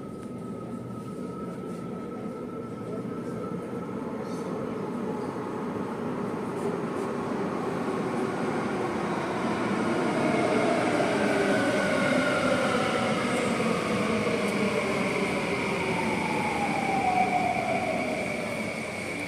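Singapore MRT Downtown Line train pulling into the underground station, growing louder over the first half. Its motors whine in several tones that slide down in pitch as it brakes.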